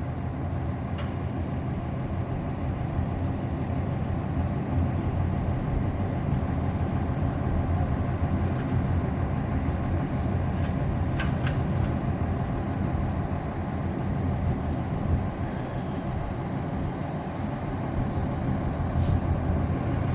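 Fire engine's diesel engine idling, a steady low rumble.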